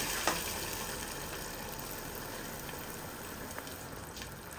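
Water hissing and bubbling in a hot pot of butter-fried rice and onions right after it was poured in, the sizzle slowly dying down. There is one small knock about a quarter second in.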